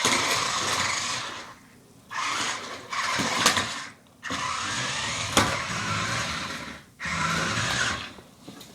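Remote-control car's electric motor and gears whirring in four runs of one to three seconds, stopping briefly between them, with two sharp knocks about a third and two thirds of the way through.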